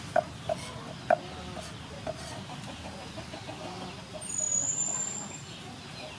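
Steel cleaver chopping garlic on a thick wooden chopping board: several sharp knocks in the first two seconds, then lighter taps. About four seconds in, a bird calls.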